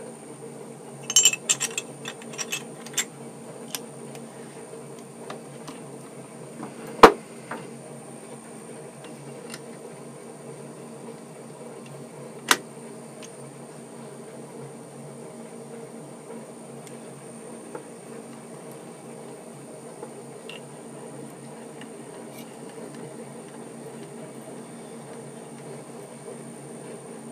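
Metal lathe running steadily, its spindle turning a handwheel collet chuck while a tailstock drill bores into a small part, with a steady hum and a faint high whine. A few light clicks come a second or two in, a single sharp knock about seven seconds in, and another click a few seconds later.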